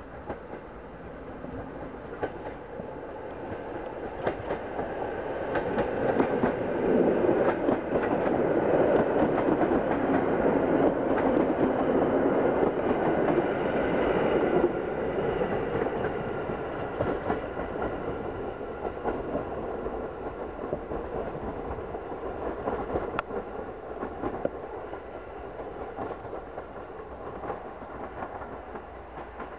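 EN57 electric multiple unit running past: wheels clicking over rail joints. It grows louder as the unit nears, is loudest for several seconds as it goes by, then fades away.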